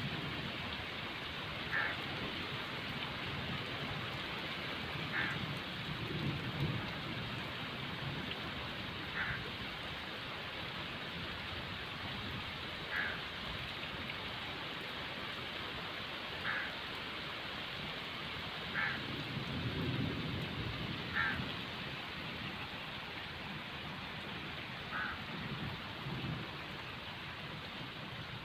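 Heavy rain falling steadily on wet ground. A short, high call repeats every two to four seconds, and there are a few low rumbles.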